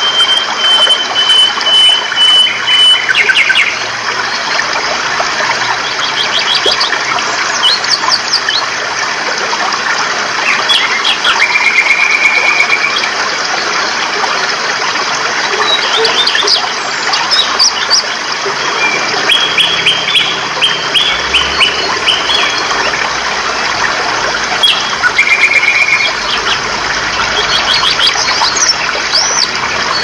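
Steady rush of a rocky stream's water with birds singing over it: a high piping note repeated about twice a second for the first few seconds, then scattered short trills and quick chirps.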